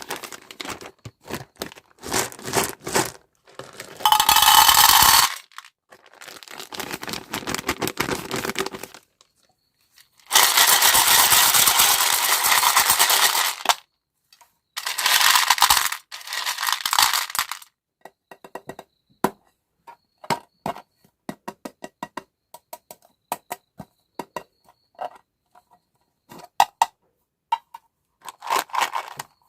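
Hands unboxing and handling small items: several bursts of crinkling and tearing packaging, then a long run of small clicks and taps from about the middle on.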